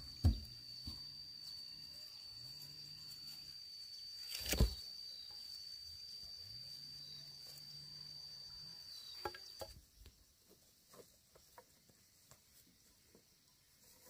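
A steady, high-pitched insect drone that cuts off suddenly about ten seconds in, with a few sharp knocks from a wooden harrow frame being set down and handled on grass; the loudest knock comes near the middle.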